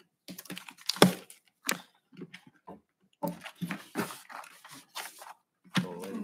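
Irregular rustling, clicks and light knocks of papers and objects being handled as people pack up after a meeting, with a faint voice near the end.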